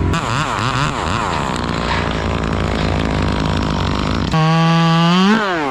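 Chainsaw engine revved up and down several times, then held at a louder, higher rev about four seconds in that climbs and falls away near the end.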